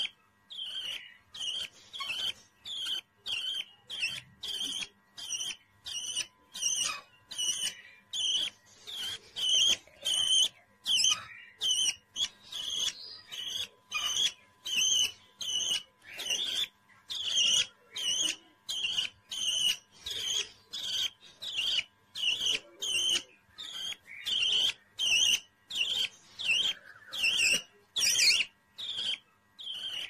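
Young budgerigar chirping steadily, short sharp calls repeated about twice a second.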